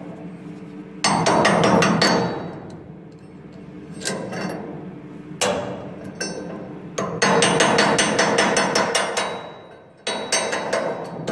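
Rapid metal-on-metal tapping in several bursts, chipping and scraping weld slag off a freshly welded nut and steel plate. The longest burst comes in the second half.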